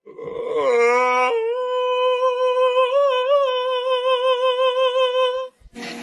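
A single long hummed note, held steady for about five seconds with a slight waver near the middle, then cut off abruptly.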